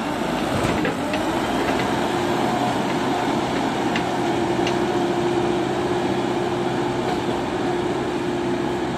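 JCB backhoe loader's diesel engine running steadily under load as the front loader bucket pushes into the soil, with a steady whine held throughout.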